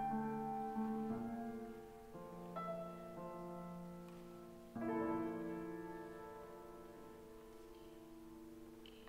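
Closing bars of a piece played on piano: held chords, then a final chord struck about five seconds in and left to ring and fade away.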